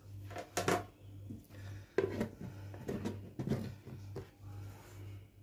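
A bowl being covered by setting a second, upturned bowl over it: a few light knocks and scrapes of the bowls being handled, over a steady low hum.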